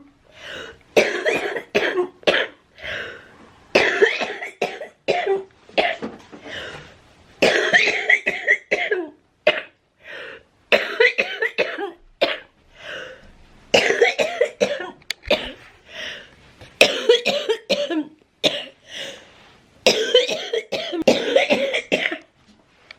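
A woman with cystic fibrosis in a long coughing fit: bouts of several coughs come one after another every few seconds, with short gaps between them.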